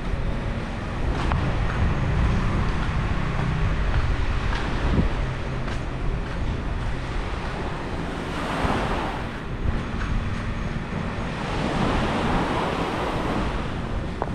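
Sea waves washing onto a beach, with two louder swells of surf about halfway through and again near the end, under wind rumbling on the microphone.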